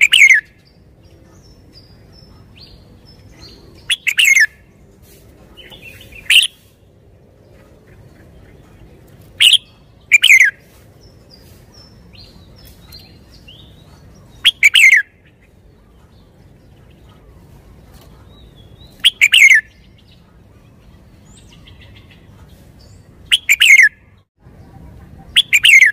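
Caged red-whiskered bulbul singing: short, loud phrases, each a quick falling whistle, repeated every two to five seconds, with faint chirps between them.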